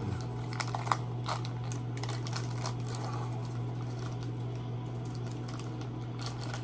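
A steady low hum under scattered small clicks and crinkles, densest in the first second or so, from food and packaging being handled during an MRE meal.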